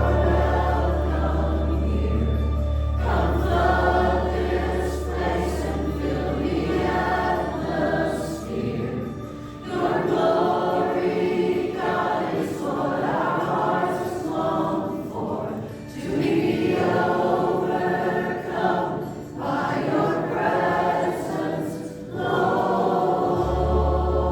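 A group of voices singing a church worship song in phrases a few seconds long. A low steady drone sits under the first third, drops away, and returns near the end.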